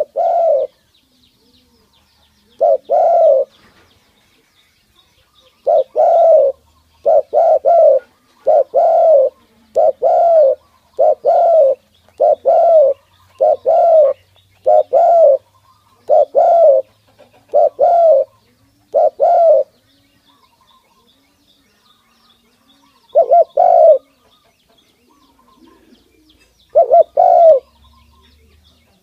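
Spotted dove cooing: short doubled coos repeated about once a second in a long run, with pauses before and after and a few more coos near the end.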